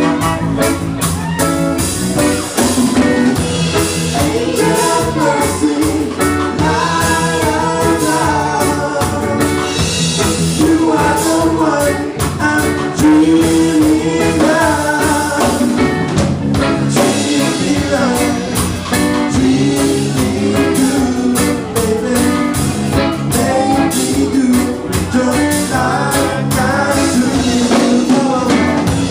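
Band music with a singer over guitar and drum kit, loud and continuous.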